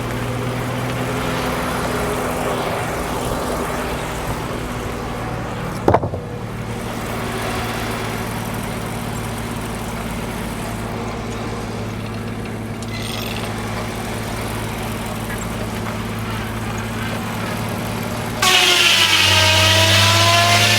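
Engine running steadily to drive a Frick sawmill between and during cuts, with one sharp knock about six seconds in. Near the end the sound jumps abruptly louder, with a wavering whine over the engine.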